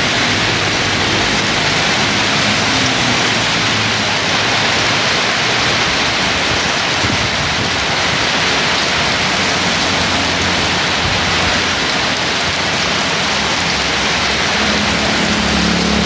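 Heavy rain pouring steadily onto a wet paved street, with the low hum of traffic passing on the road underneath.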